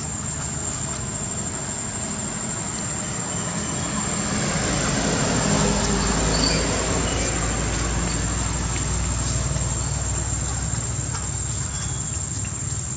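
Steady outdoor background noise with a thin high-pitched whine throughout, and a low rumble that swells about four seconds in and slowly fades, like distant traffic.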